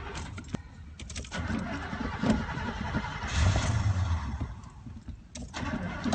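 A Buick's engine being cranked and struggling to start, after a few clicks at the start. It swells roughly about three seconds in, sags near five seconds, then picks up again; the car is balky with its ignition coil tampered with.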